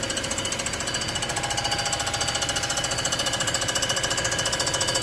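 Surface-grinding/milling machine's rotating cutter taking a light pass across a warped cast-iron IHC C60 cylinder head face. It makes a fast, even rhythmic chatter over a steady machine whine.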